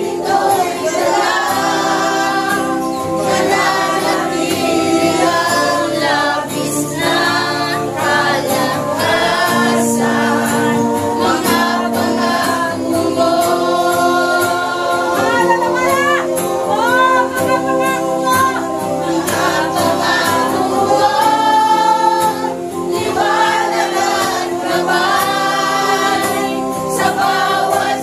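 Congregational worship singing of a Tagalog praise chorus, many voices together over steady instrumental accompaniment.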